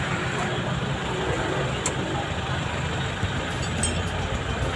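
A vehicle engine idling: a steady low drone, with a couple of faint light clicks over it.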